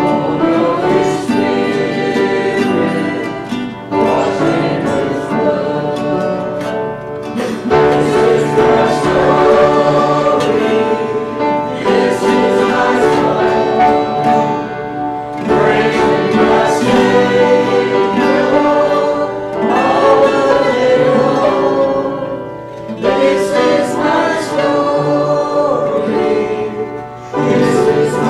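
Gospel hymn sung by voices with acoustic guitar accompaniment, in phrases of a few seconds with short breaths between them.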